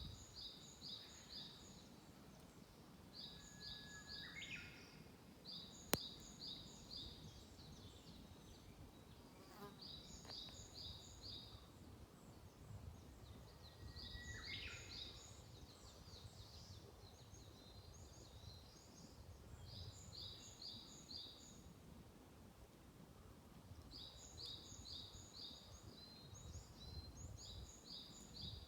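Small songbirds singing in a forest, faint: one bird repeats a short phrase of four or five quick high notes every few seconds, and twice a lower sweeping call is heard from another. A single sharp click comes about six seconds in.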